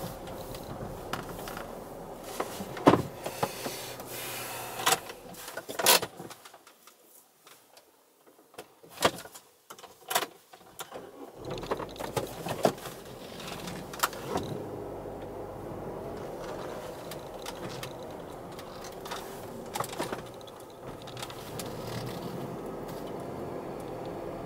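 Cabin noise of a car slowly manoeuvring on a gravel lot: a steady low running sound with scattered sharp clicks and knocks. A few seconds around the middle the low noise drops away almost to silence before it returns.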